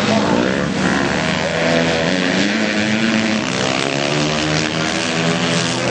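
Several dirt-bike engines in a flat-track race, revving up and down as they come through a turn and down the straight, the pitches of the different engines overlapping.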